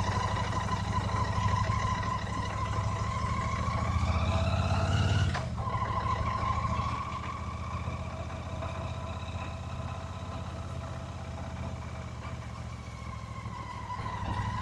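Royal Enfield Shotgun 650's parallel-twin engine under way on the road. The revs climb for the first few seconds, drop sharply about five seconds in, and then run steadier and lower, picking up again near the end.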